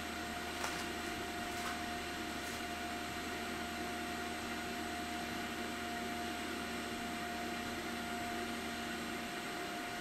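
Eibos filament dryer running at full power, 70 °C: its fan blows steadily with a thin whine while the heater stays on the whole time. A faint click comes about half a second in.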